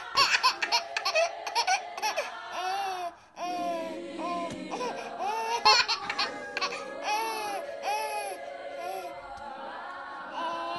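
A young child laughing and giggling in short repeated bursts over background music.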